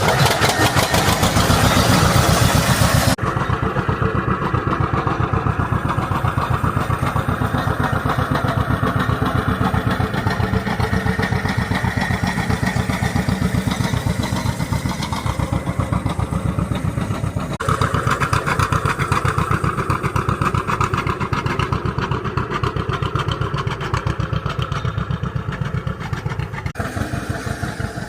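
John Deere tractor engine running steadily under load, a rapid even chugging, with abrupt changes in tone about 3, 17 and 27 seconds in.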